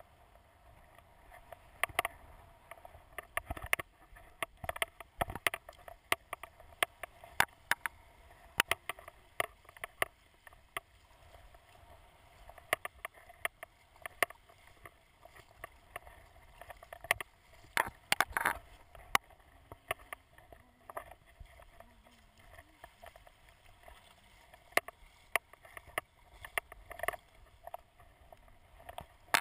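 Water splashing and lapping in the shallows as a plastic sit-on-top kayak is launched off a sandy beach, with frequent sharp, irregular splashes and knocks over a steady wash.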